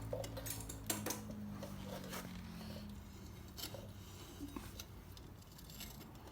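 Scattered light metallic clicks and taps of a motorcycle's rear brake pads and caliper pins being worked loose by hand.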